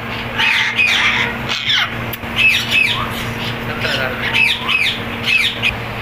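Many caged parrots squawking and chirping, short falling calls overlapping two or three times a second, over a steady low hum.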